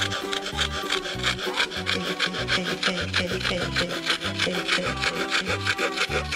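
Coping saw cutting through a small block of wood in quick, even back-and-forth strokes. Its blade is rather coarse-toothed for the job. Background music plays underneath.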